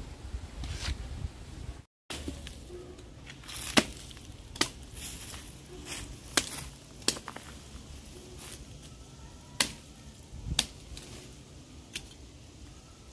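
A series of sharp, separate chopping knocks, about seven spread over ten seconds, as a bolo cuts apart a freshly harvested cassava stump and its roots.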